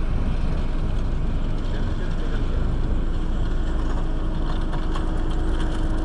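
Steady low engine rumble, with a steady hum joining about halfway through.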